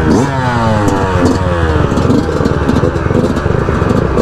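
Dirt bike engines accelerating hard, each engine note climbing in pitch and dropping back as the gears are shifted up, several times over.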